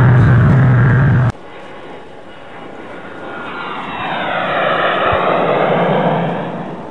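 Airplane flying past, its engine drone swelling and dropping in pitch as it passes, then fading. Before it, a loud low-pitched sound cuts off abruptly about a second in.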